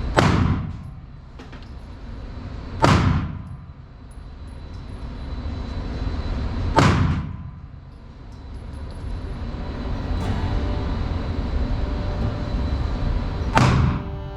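Four shots from a Sig Sauer P322 .22LR pistol, fired at uneven intervals, each a sharp crack with a short ringing tail. A steady rumble rises and falls beneath them.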